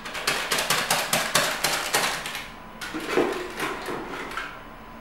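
Plastic sachet of powdered drink mix crackling and being tapped in quick rapid strokes as the powder is shaken out into a blender jar, followed by a few looser knocks and rustles about three seconds in.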